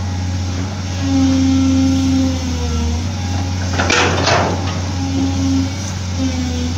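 Excavator's diesel engine running under hydraulic load, its tone shifting up and down as the arm and bucket are worked, with the rear of the machine sinking in swamp mud. A brief rushing burst about four seconds in.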